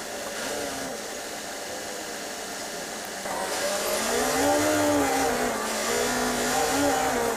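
Bus engine heard from inside the bus, running steadily, then speeding up about halfway through. Its pitch rises and falls twice as the bus accelerates through the gears.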